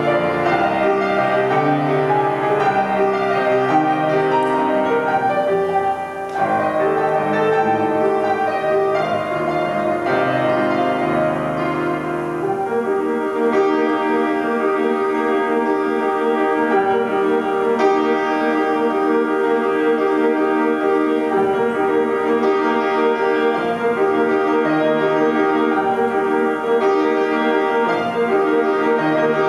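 Grand piano being played, a steady flow of notes with a brief dip about six seconds in; from about halfway the playing turns to fuller sustained chords in the middle register.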